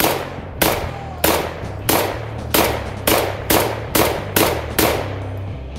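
Black Aces Tactical Pro Series semi-automatic bullpup shotgun fired ten times in quick succession, about two shots a second, emptying a 10-round magazine.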